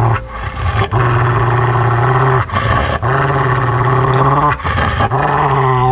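A mongrel dog growling in three long, steady rumbles with short breaks between them, protesting at being hand-fed medicine it dislikes.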